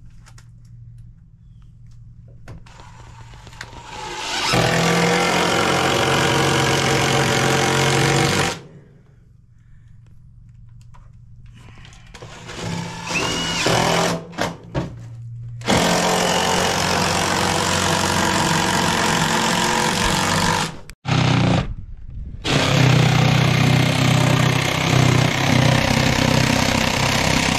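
Power saw cutting wood in several long runs with short stops between; in the later runs it is a jigsaw cutting a round hole for the toilet drain in an OSB subfloor sheet.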